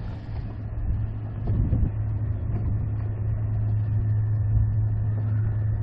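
A boat's motor running steadily, a constant low hum with rumble beneath it.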